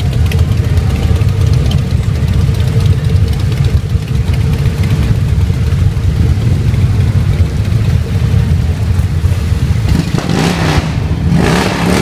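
Several classic motorcycle engines idling together at close range, a steady deep rumble with fast even pulsing. Something louder and brighter joins near the end.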